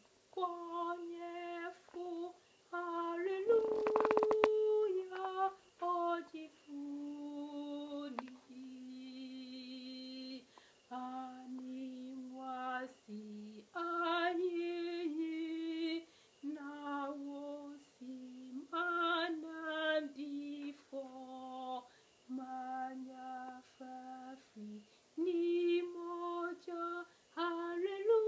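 A woman singing a hymn solo and unaccompanied, in Twi, in slow phrases of long held notes with short breaths between them. A brief burst of noise about four seconds in sits on one of the loudest notes.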